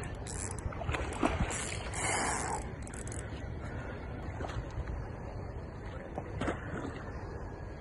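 Steady low wind rumble on the microphone, with a few short bursts of hiss in the first three seconds and a brief sharp noise about six and a half seconds in.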